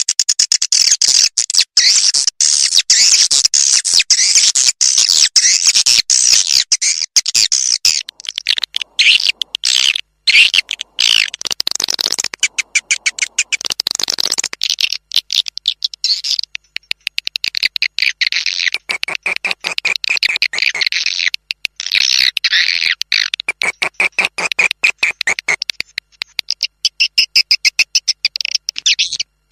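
Swiftlet lure call for bird-nest farming: a fast, high-pitched chittering twitter of swiftlets repeating in rapid pulses, with a few short breaks.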